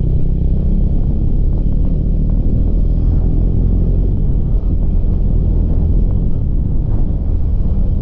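Motorcycle ridden at cruising speed: a steady engine drone under a heavy low rumble of wind and road on the on-board microphone.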